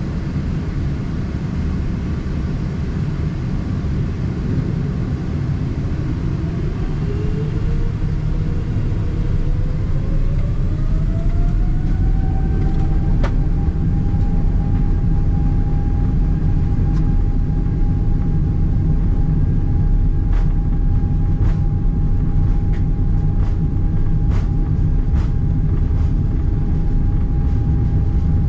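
Cabin noise of a Boeing 777-300ER taxiing: a steady low rumble, with the whine of its GE90-115B engines rising over about six seconds and then holding at a higher pitch as thrust is added. A few faint clicks in the second half.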